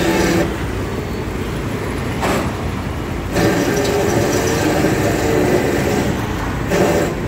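Vehicle engine running steadily with street traffic around it; the sound shifts about half a second in and again about three and a half seconds in.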